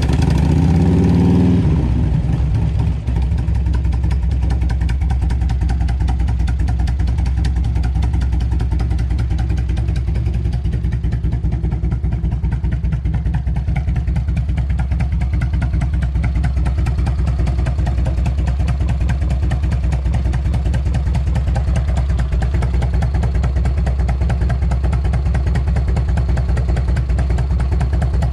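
Harley-Davidson Electra Glide Classic's Evolution V-twin engine running, rising briefly in the first couple of seconds and then idling steadily. It is being run after an oil change to circulate the fresh oil through the engine, filter and oil tank.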